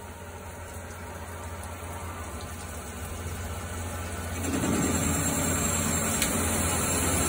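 CNC lathe running, its spindle turning a workpiece with coolant spraying: a steady machine hum that slowly builds and grows clearly louder, with added hiss, about four and a half seconds in. A single sharp click near the end.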